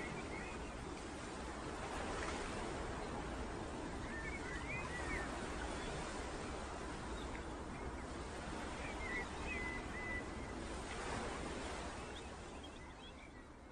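Floodwater rushing and churning through a breach in a river embankment (levee), a steady noise of turbulent water. A bird chirps a few times over it, and the rushing fades a little near the end.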